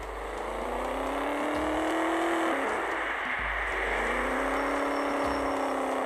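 Car engine accelerating, its pitch rising steadily for about two and a half seconds. Around three seconds in it drops, as at a gear change, then climbs and levels off again.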